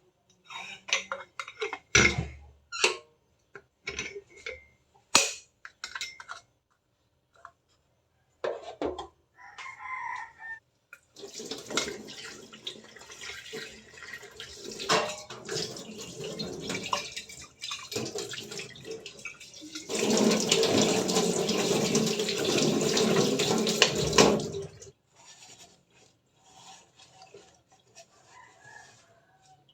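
Light clicks and knocks, then water running from a tap, loudest for about four seconds near the middle before it cuts off. A rooster crows faintly in the background.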